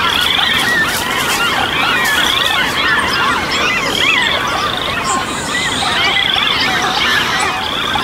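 Dense spring chorus of many birds and frogs calling at once, a thick mass of overlapping chirps and squeals. A short high trill repeats about once a second.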